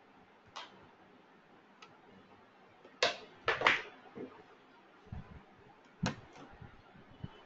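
A few brief clicks and rustles over a faint steady background hiss, the loudest cluster about three seconds in and another about six seconds in.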